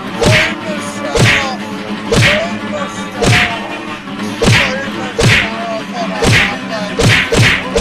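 Repeated punches landing on a body, one blow about every second, over background music.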